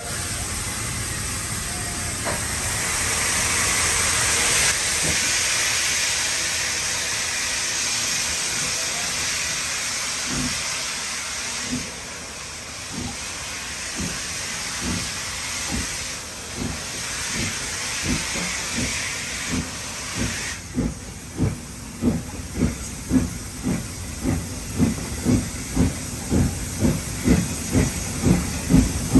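Steam locomotive getting under way: a steady hiss of steam at first, then exhaust chuffs begin about ten seconds in and quicken steadily to about two a second by the end.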